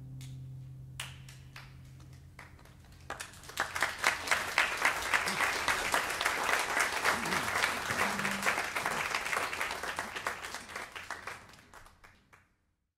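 The last held note of the ensemble's song dies away while a few scattered claps start. About three seconds in, audience applause breaks out in full, then thins and fades out near the end.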